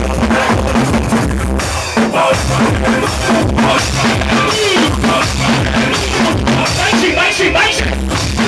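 Loud soca music with a driving drum beat and heavy, evenly pulsing bass.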